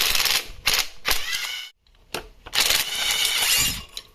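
Metal hand tools and engine parts clattering and clinking in several loud bursts, with a metallic ringing in some of them, as work on the engine begins.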